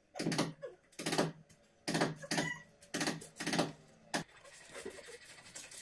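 A man's voice speaking in short phrases for about four seconds, then faint room noise.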